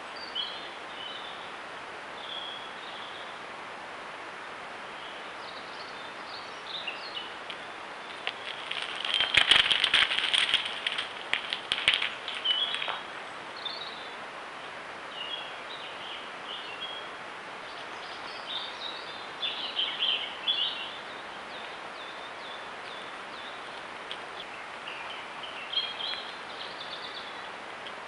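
Wild birds chirping and calling on and off over a steady background hiss, with a louder spell of rapid chirps and sharp clicks from about a third of the way in to nearly halfway.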